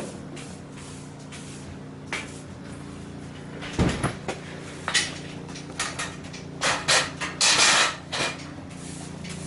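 Scattered knocks and clicks, with a strong thump about four seconds in and a brief scraping rustle near the end, over a steady low hum.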